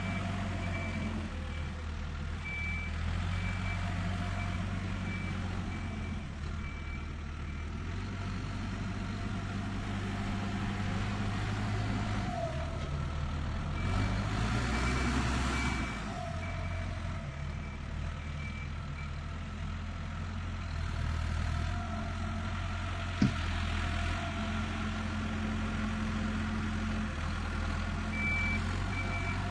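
Heavy tractor engine idling and working with a steady low rumble, while a reversing alarm beeps in spells, at the start, in the middle and again near the end. About halfway through the sound swells with a louder hiss for a couple of seconds, and a single sharp click comes a little later.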